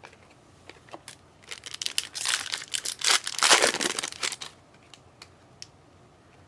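Foil trading-card pack wrapper being torn open and crinkled for about three seconds, loudest in the middle, with a few light clicks and taps from cards being handled before and after.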